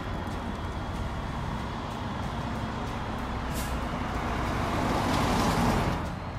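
Road traffic noise with a vehicle passing close by, swelling to its loudest about five seconds in and then dropping away sharply; a brief hiss sounds a little earlier.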